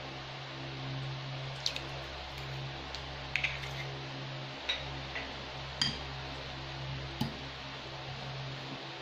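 A fork clinking sharply against a ceramic bowl a handful of times as an egg is cracked in and stirred into a mashed tuna mixture, over a steady low hum.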